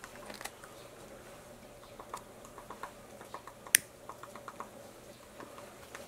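Japanese pygmy woodpecker pecking and chiselling at tree bark: irregular light taps, with one much sharper, louder knock a little past the middle.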